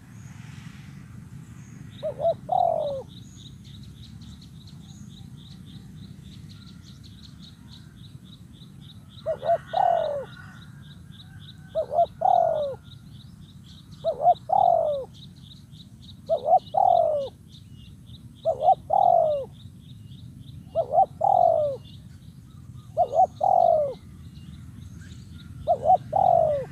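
Spotted dove cooing in short two-to-three-note phrases: one early, then after a pause a phrase about every two seconds. A rapid, high, even trill runs continuously behind it.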